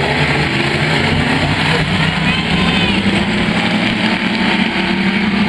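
A pack of pure stock dirt-track race cars running at racing speed, their engines blending into one loud, steady drone.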